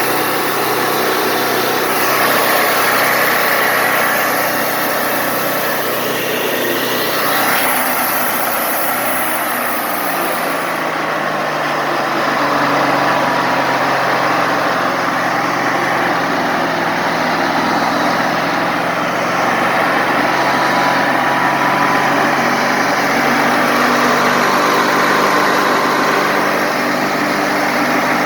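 Wood-Mizer LT40 Wide band sawmill running steadily. About ten seconds in, a high hiss drops away and the low drone shifts slightly.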